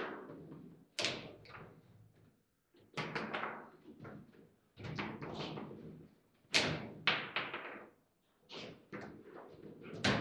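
Table football in play: sharp knocks and clacks as the ball is struck by the plastic figures and rebounds off the table, and the rods bang against the sides. They come in irregular clusters of hits with short pauses between.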